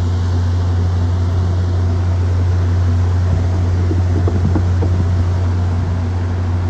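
Steady low drone of an MBTA GP40MC diesel locomotive idling while its commuter train stands at the station.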